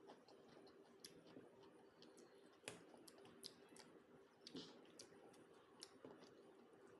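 Faint, irregular mouth clicks and smacks of someone chewing a mouthful of rice and curry, the sharpest about two and a half seconds in.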